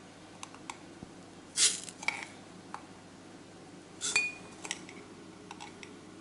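A metal teaspoon clinking and scraping against a sugar bowl and glass jars as sugar is spooned into the jars, with a few short rustles of sugar tipping in. The clinks are light and scattered, and one about four seconds in rings briefly like glass.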